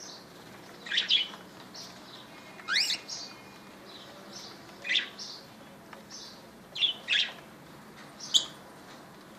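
Pet cockatiels chirping: short, sharp high calls every second or two, one of them a quick rising whistle, with softer chirps in between.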